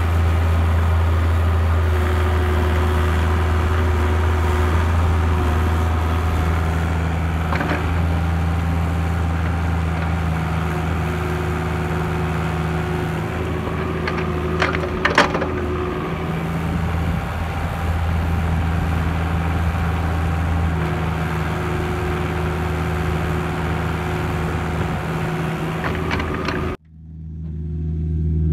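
Cat 304C CR mini excavator's diesel engine running steadily under digging, with a few sharp cracks from the bucket tearing through root-filled dirt, once early and a cluster midway. The sound drops out abruptly near the end and comes back.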